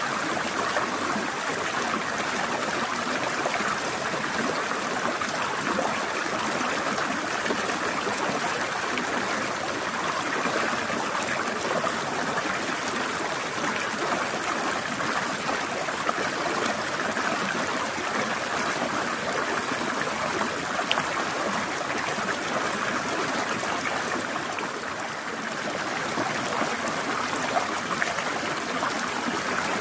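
Small stream of water trickling and splashing over rocks, a steady rush with fine gurgles throughout. It dips slightly in level for a moment about two-thirds of the way through.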